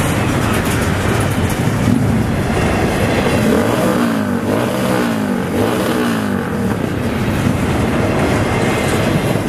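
Double-stack intermodal container train passing close by, a steady loud rumble and rattle of well cars rolling over the rails. Around the middle a wavering tone rises and falls a few times.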